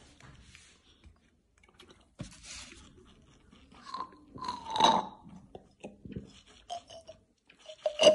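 Someone drinking soda through a plastic straw from a glass bottle: irregular sucking slurps and short gurgles, loudest about five seconds in and near the end.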